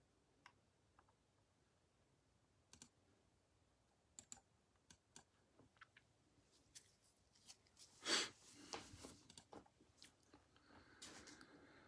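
Faint, scattered small clicks. About eight seconds in comes a short louder rustle, followed by a few seconds of soft handling noise.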